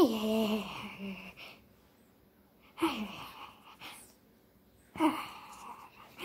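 A cat meowing four times, each call falling in pitch with a breathy edge; the first is the longest and loudest.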